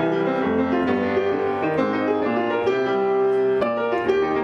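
Background music led by piano, starting abruptly and playing a steady run of notes.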